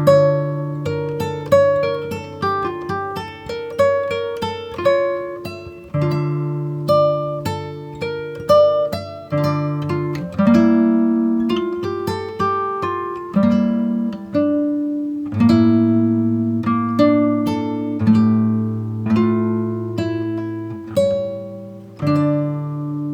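Background music: acoustic guitar playing plucked notes and chords at a steady pace.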